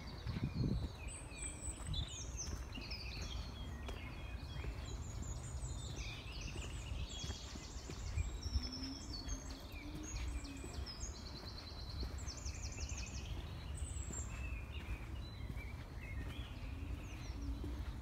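Several songbirds singing at once in woodland, short chirps and trills overlapping, with fast runs of repeated notes in the middle, over a steady low rumble.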